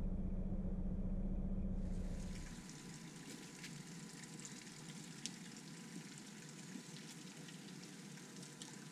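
A narrowboat's engine running with a steady low drone that fades out about two and a half seconds in, leaving only a faint steady hiss with a few light ticks.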